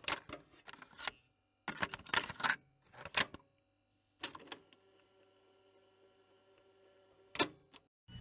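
Bursts of sharp mechanical clicks and clacks, in four groups over the first four and a half seconds. A faint steady hum made of several held tones follows, and one loud click comes near the end.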